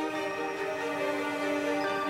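Slow background music of long held notes that change pitch every second or so, with no beat.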